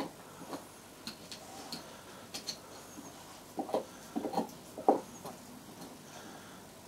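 Beagle gnawing a bone: irregular clicks and crunches of teeth on bone, with a run of louder crunches about three and a half to five seconds in.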